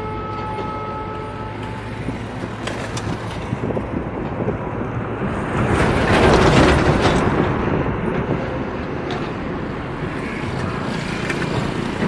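Long freight train of covered wagons rolling past behind an electric locomotive: a continuous rumble and clatter of steel wheels on the rails, with scattered clacks, swelling to its loudest about six seconds in. A steady multi-note tone fades out in the first second or so.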